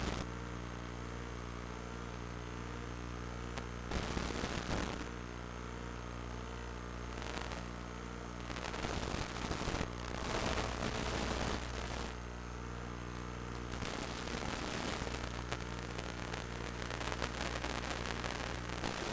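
Steady electrical hum with repeated bursts of hissing static, each lasting a second or more, about four seconds in, around eight to twelve seconds in, and near the end.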